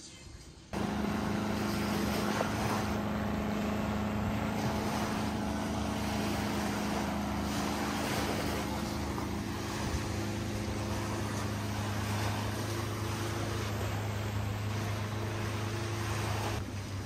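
Boat engine running steadily under way, a constant hum over wind and water rushing past. It starts suddenly about a second in and drops away near the end.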